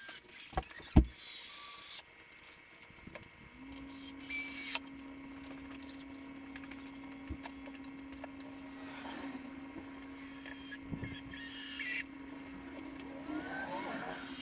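Cordless drill driving screws into a wooden frame in several short runs of about a second each. There are two sharp knocks about a second in, and a steady low hum from a few seconds in.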